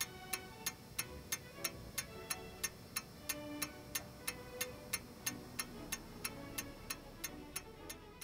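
Brass movement of an antique French Vincenti wall clock ticking steadily, about three ticks a second, over soft background music.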